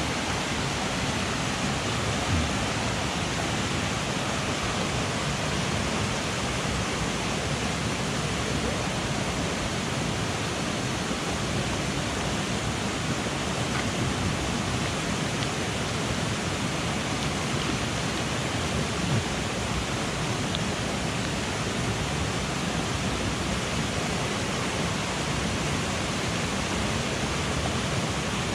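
Steady rush of a mountain headwater stream flowing over rocks.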